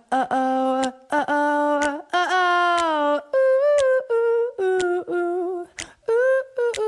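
A voice humming a wordless melody without accompaniment: a string of held notes with short gaps between them, closing out the slideshow's song.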